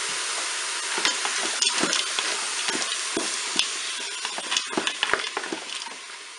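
Chicken strips and mushrooms sizzling in hot oil in the bowl of a Moulinex Cookeo multicooker on its browning setting, stirred with a wooden spatula that scrapes and clicks against the bowl. The sizzling dies down near the end.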